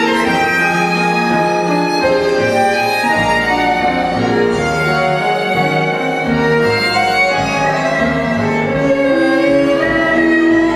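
Live tango orchestra playing, with a violin prominent over piano and bandoneon.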